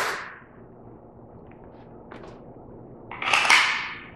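Cardboard product box being opened by hand: a sharp snap at the start, a faint tick about two seconds in, then about a second of cardboard sliding and rubbing near the end.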